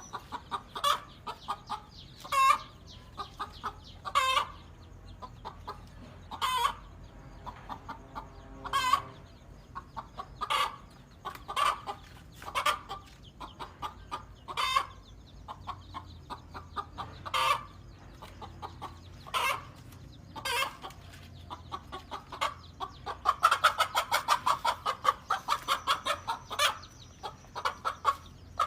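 Domestic hen clucking, with short separate calls about once a second, then breaking into a fast, louder run of calls about 23 seconds in.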